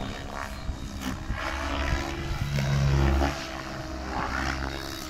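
ALZRC N-Fury T7 electric RC helicopter's rotor blades and brushless motor whining in flight, the pitch shifting as it manoeuvres; it grows louder to a peak about three seconds in, then drops away.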